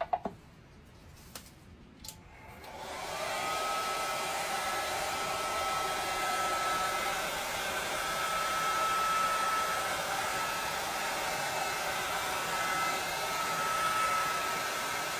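A few sharp clicks, then a handheld electric heat gun switched on about two and a half seconds in. It rises to full speed within a second and blows steadily with a thin steady whine, as it is passed over wet acrylic pour paint to bring up cells and pop bubbles.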